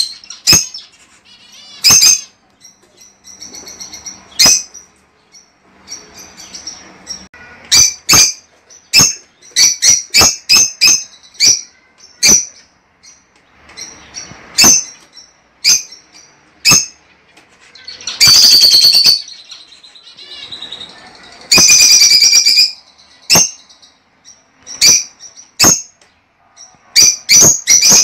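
Lovebirds calling: short, sharp high-pitched shrieks and chirps at irregular intervals, with two longer bursts of rapid chattering calls about 18 and 21 seconds in.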